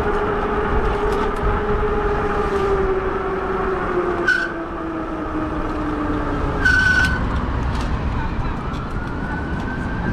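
Riding a fat-tire e-bike in strong wind: wind rushing on the microphone, with a whine from the bike that slowly drops in pitch. Two short high squeals come about four and seven seconds in, and a tone rises in pitch near the end.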